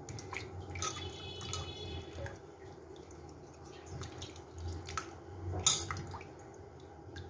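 Fresh ginger pieces being rubbed and swished by hand in water in a stainless steel bowl, with irregular splashes and knocks against the bowl as the soil is washed off. The loudest splash comes just before six seconds in.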